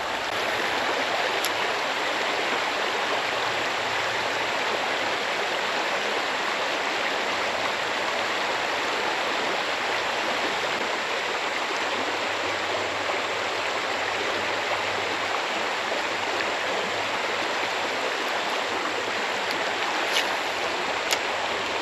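Creek current running steadily over a riffle, an even rushing hiss of flowing water, with a couple of faint clicks near the end.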